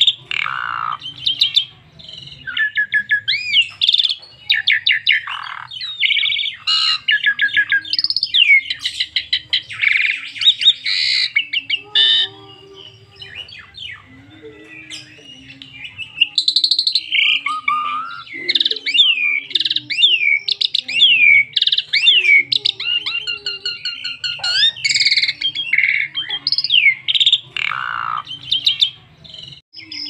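Asian pied starling singing a long, varied song of rapid chattering trills and gliding whistles, loud and almost continuous, softer for a few seconds around the middle.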